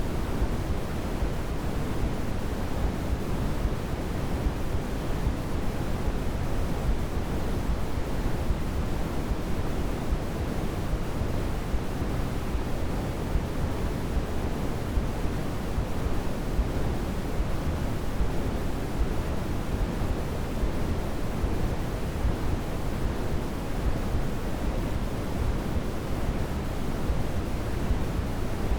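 Steady, unbroken white noise, an even hiss weighted toward the low end like pink noise, with no change in level.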